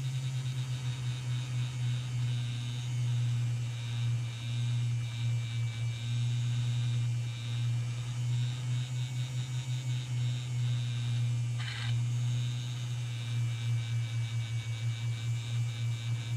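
Electric motor and gearing of a Heljan Class 35 Hymek model locomotive running with its wheels spinning freely while it lies upside down, a steady low hum that wavers, as a cotton bud is held against a turning wheel to clean it. A brief scratchy sound comes about twelve seconds in.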